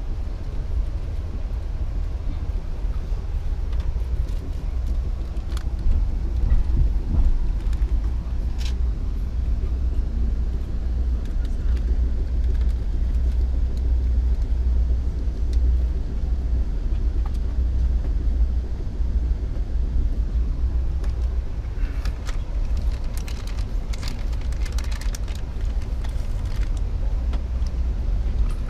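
Steady low rumble of a moving passenger train heard from inside the coach, with scattered light clicks and rattles, more of them near the end.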